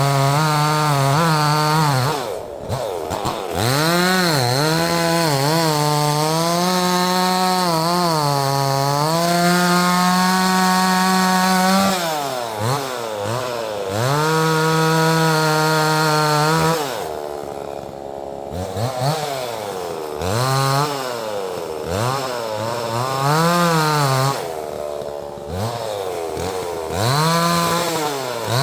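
Neotec 68cc two-stroke chainsaw cutting wood, held at full throttle for several seconds at a time and falling back toward idle between cuts, its pitch dropping and climbing again over and over.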